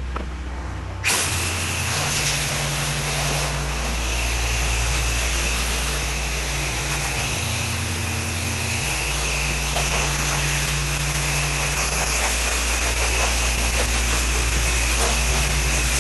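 Pressure washer running: a steady low engine hum under the hiss of the water spray, the hum shifting in pitch now and then.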